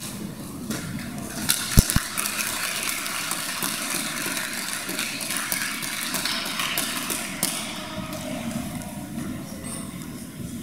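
Audience clapping, building about a second in and fading out after about eight seconds. One sharp thump lands near two seconds in.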